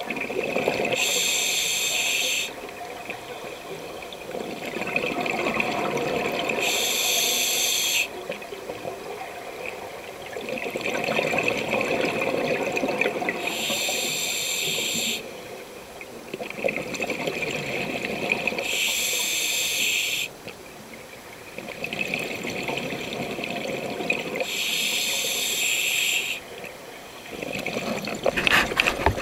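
A scuba diver breathing through a regulator. About every six seconds, five times in all, there is a hiss of about a second and a half, and between the hisses the exhaled bubbles gurgle and rumble. A few sharp clicks come near the end.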